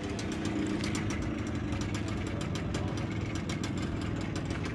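Minsk motorcycle's single-cylinder two-stroke engine idling steadily.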